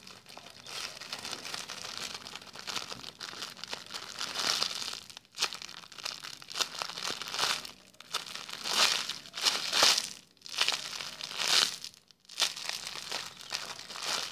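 Clear plastic packaging bag crinkling and rustling in repeated surges as a squishy toy inside it is squeezed by hand.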